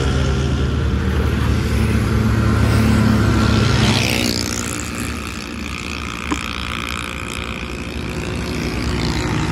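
A motor vehicle engine runs with a steady low hum. About four seconds in it gives way to a broad rush of passing-traffic noise, and a single sharp click sounds about six seconds in.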